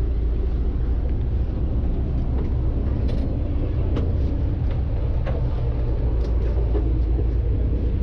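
Fishing boat's engine running with a steady low drone, with a few small clicks and knocks over it.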